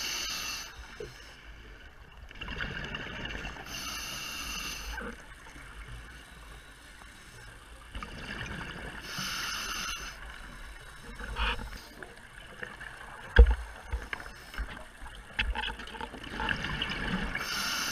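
Scuba diver breathing through a regulator underwater: bursts of exhaled bubbles fizz out roughly every four to five seconds, with quieter breathing in between. Scattered clicks and knocks, the loudest a dull thump about two-thirds of the way through.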